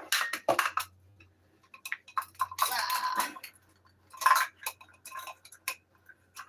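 Red plastic measuring cups clicking and clacking against each other as a nested set is pulled apart and handled, in a string of separate knocks with a longer rattle a little before the middle.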